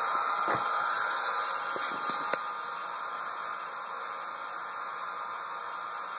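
TCS WOW Sound decoder in an HO Bachmann 2-8-0 steam locomotive playing a steady steam hiss through the model's small speaker, powered by its Keep Alive unit while the locomotive sits off the track. A few light knocks in the first two and a half seconds come from the model being handled and set down, and the hiss grows slightly quieter.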